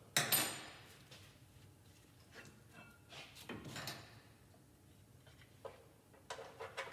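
A 1998 Jeep Cherokee front brake caliper, pads still in it, slid off the brake rotor: a sharp metallic scrape and clank with a short ring just after the start, then quieter knocks and clinks as it is handled and hung on a hook inside the fender well.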